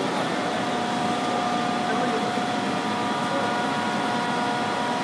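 Heavy-duty CNC facing lathe running: a steady mechanical hum with a constant whine at several fixed pitches.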